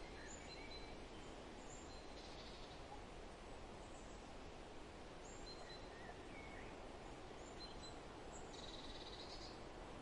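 Forest ambience: a steady soft rush of wind with scattered short bird chirps and whistles, and a longer buzzy bird call near the end.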